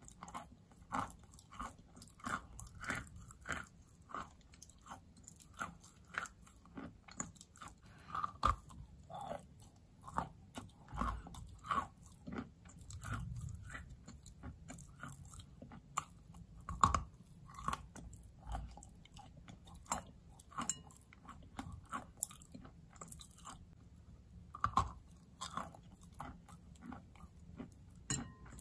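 Close-up chewing of a mouthful of wet white chalk: irregular crunching and crackling clicks, a few louder than the rest.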